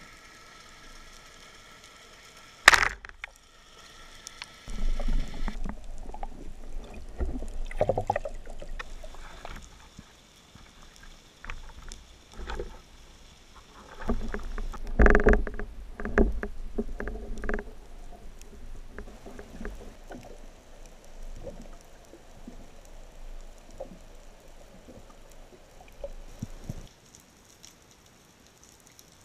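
Underwater sounds from a camera mounted on a spearfishing speargun: one sharp click a little under 3 s in, then irregular knocks, thuds and rushing water as the diver handles and moves the gun, loudest about halfway through, tailing off to faint scattered knocks.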